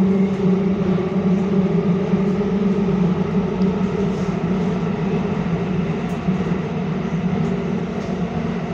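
Copenhagen Metro train running through a tunnel, heard from inside the carriage: a steady rumble with a strong low hum, easing slightly in loudness toward the end.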